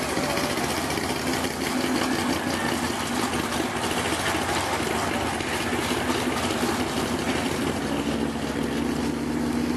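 A Ford pulling truck's engine idling steadily with a lumpy note, hooked to the sled before a pull; the note firms up and rises slightly about eight seconds in.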